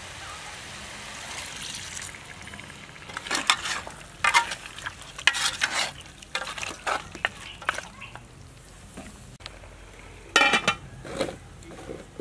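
Metal spoon stirring pork ribs in thick red pepper paste in a metal pot, with bursts of scraping and clinking against the pot's side over a low sizzle of the meat frying.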